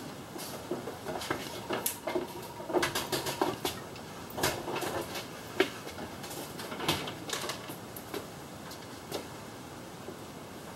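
Irregular metallic clinks, knocks and rattles as an engine hanging from a hoist chain is handled over the engine bay. The sharpest knocks come about halfway through.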